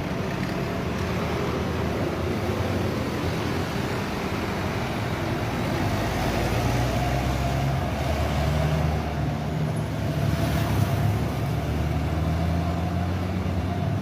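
A car engine running steadily under way, with a steady whine over it; the engine note rises a little about halfway through.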